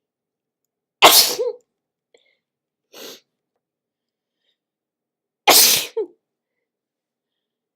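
A person sneezing twice, about four and a half seconds apart, each sneeze a sudden loud blast with a short tail. A much quieter, short breathy sound comes between them.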